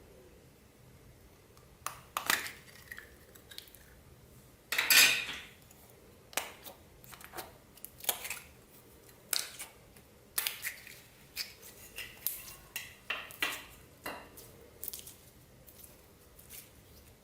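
Irregular clinks and taps of hard objects against a container while slime is mixed with makeup and plastic beads, one or two a second, with one longer, louder noise about five seconds in.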